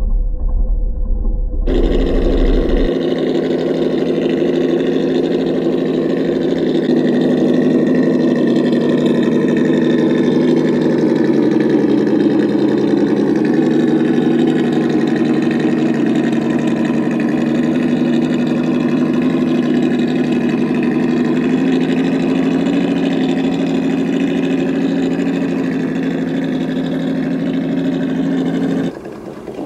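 Simulated V8 engine sound from an ESS-One sound module in an RC crawler, played through its small onboard speaker. It is a steady engine rumble whose pitch dips slightly about halfway through, and it drops away suddenly near the end.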